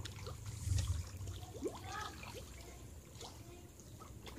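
Faint water sounds of a crowd of pond fish, mostly freshwater pomfret, stirring and breaking the surface: soft plops and small clicks over a low steady rumble.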